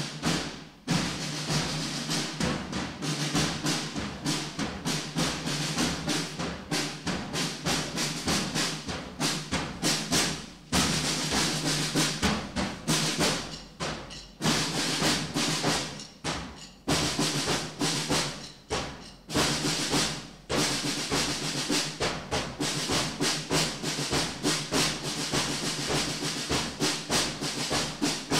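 Drumming, a fast, dense run of snare-like strokes that breaks off briefly several times and starts again, played as a processional while the official party enters.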